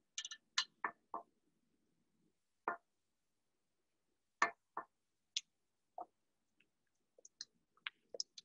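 Silicone spatula scraping and knocking against a stand mixer's wire whisk attachment and stainless steel bowl, with the mixer off. About a dozen short, scattered clicks and scrapes, bunched in the first second and again near the end.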